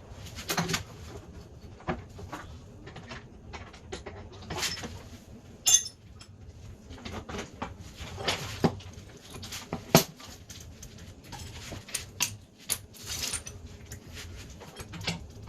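Irregular metallic clinks, taps and clatter of hand tools and small metal parts being handled, with the loudest knocks about six and ten seconds in.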